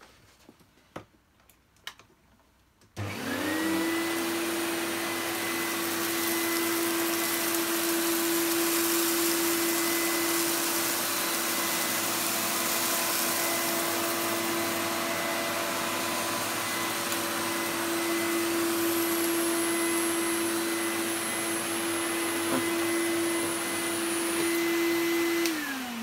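Dr Nilco Fakir commercial upright vacuum cleaner switched on about three seconds in, its motor spinning up quickly to a steady whine and running evenly during a cleaning pass. It is switched off near the end, the pitch falling as it winds down. A few faint clicks come before it starts.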